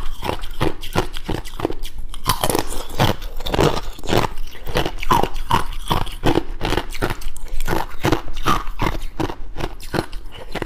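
Thin ice being bitten and chewed: a fast run of crisp crunches and cracks, about three to four a second.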